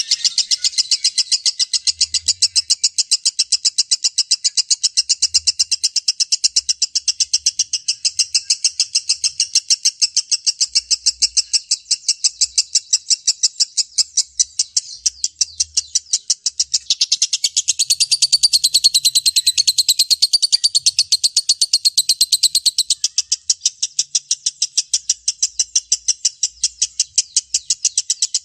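Lovebird 'ngekek': a long, unbroken chattering trill of rapid, evenly repeated high notes. For a few seconds past the middle it grows fuller and reaches higher.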